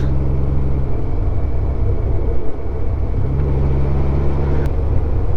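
Honda Gold Wing 1500's flat-six engine running steadily at road speed, with wind and road noise, and a brief faint tick near the end.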